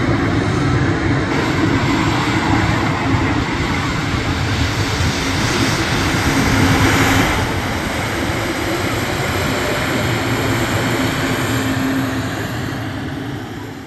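Airbus A220's Pratt & Whitney PW1500G geared turbofans running at taxi power: a steady jet rush with a low droning tone that wavers slightly. This is the whale-like 'singing' these engines make when spooled above idle. It swells about halfway through and fades out near the end.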